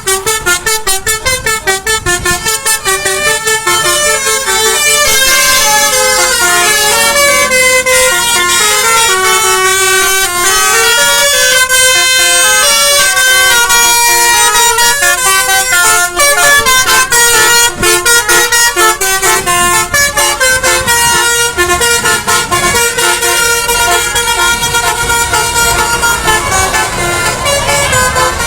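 Bus's Basuri musical horn, the Indonesian 'telolet' horn, playing a loud, fast melody of changing notes, with road noise underneath.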